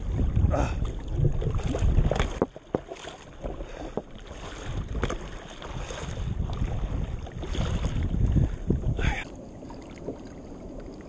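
Wind buffeting an action-camera microphone at the water's surface, with water splashing and sloshing in short irregular bursts. About nine seconds in, it drops to a quieter, steady rush of water and wind.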